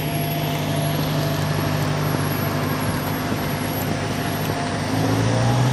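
Car engine running close by: a steady low hum over road noise. About five seconds in, a second lower engine note rises and the sound grows a little louder.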